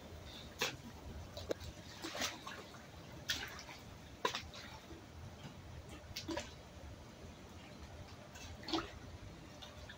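Pool water sloshing and splashing around a swimmer, with irregular small splashes and drips, the loudest a little after four seconds and near the end.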